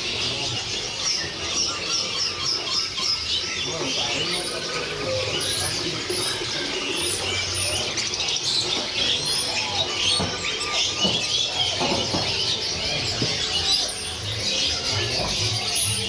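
Many caged songbirds chirping and calling at once, a dense chorus of high, overlapping chirps and trills that never lets up.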